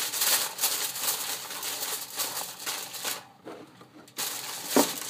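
Aluminium foil crinkling and rustling as hands press and fold it over a pan. It stops for about a second, and a single sharp thump comes near the end.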